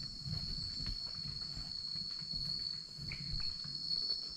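A chorus of night insects, crickets, trilling as one steady high-pitched drone, with low rustling and knocks from handling close to the microphone.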